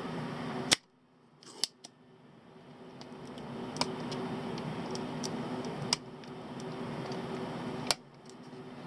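Small sharp clicks of hand tools working a component off a multimeter's circuit board, about six of them spread out, over a steady low hum.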